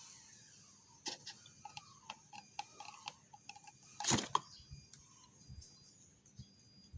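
A run of light clicks and taps from handling the old oil filter element and its plastic housing parts, with a louder knock about four seconds in.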